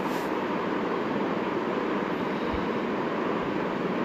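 Steady rushing background noise at an even level, with no clear handling sounds standing out.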